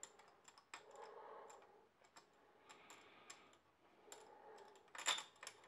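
Faint metallic clicks and scrapes of a spark plug spanner turning in the plug well as an old spark plug is unscrewed from a Suzuki Bandit 1200's cylinder head, with a louder cluster of clicks about five seconds in.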